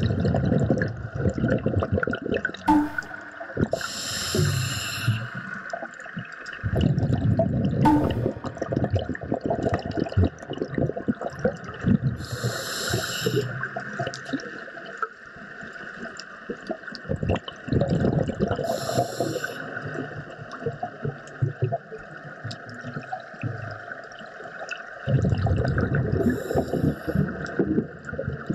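Underwater sound picked up through a camera's waterproof housing: bubbles gurgling in bursts every several seconds, with short hisses between them, over a steady water hiss.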